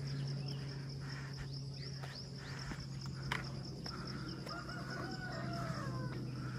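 Insects shrilling in a steady pulsing chorus, with a rooster crowing once in the background about five seconds in and a few short bird chirps. Footsteps on stone steps and a steady low hum underneath.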